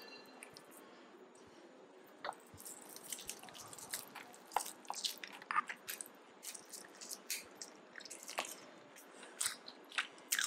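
Close-up biting and chewing of an air-fried tandoori chicken drumstick: irregular crisp crunches and wet, squishy chewing, starting about two seconds in.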